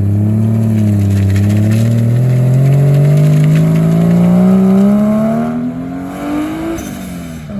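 A car engine at full throttle as the car pulls away from a meet, its note climbing steadily for about six seconds. It then drops as the driver lifts off and the car moves away.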